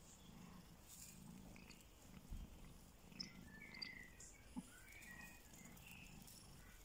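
A mother cat purring faintly while nursing her newborn kitten, a low pulsing purr that swells and fades.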